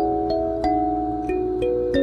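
Kalimba playing a slow, gentle melody as background music: single plucked notes, each left ringing under the next.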